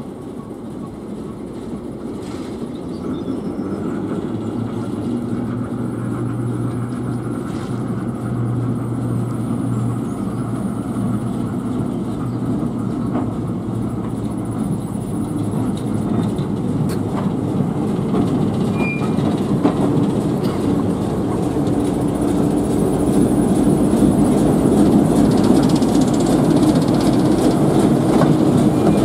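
British Rail Class 11 diesel-electric shunter, with an English Electric six-cylinder engine, running as it moves slowly along the track. Its steady engine hum grows gradually louder as it draws near and comes alongside.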